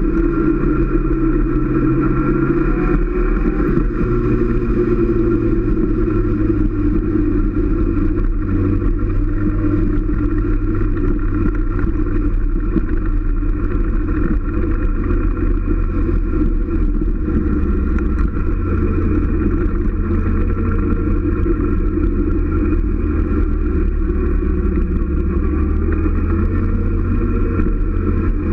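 Motorcycle engine running steadily at road speed, heard from a camera mounted on the bike. The engine note shifts a little about four seconds in and again past the middle.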